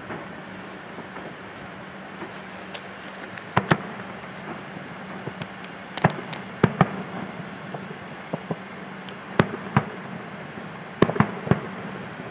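Fireworks display heard from afar: aerial shells bursting with about a dozen sharp bangs at irregular intervals, several coming in quick pairs.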